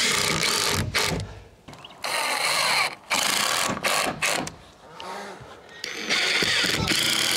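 Cordless drill driving screws through a plywood sheet into a wooden frame, running in several bursts of about a second each with short pauses between them.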